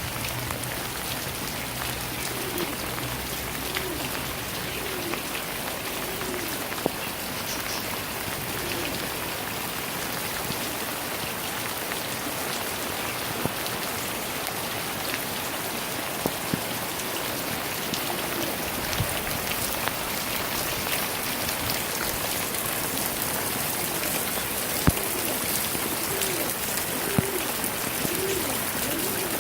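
Steady rain falling outdoors, an even patter with a few sharper single drops.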